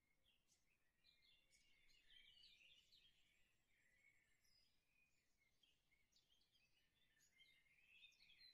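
Near silence, with faint, irregular high scratching from a mechanical pencil drawing on paper.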